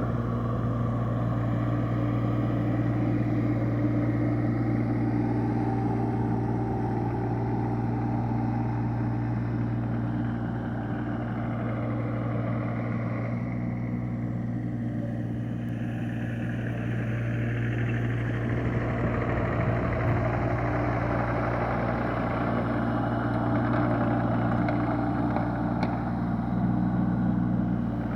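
Kubota mini excavator's diesel engine running steadily, with a mid-range noise that swells and eases as the machine works.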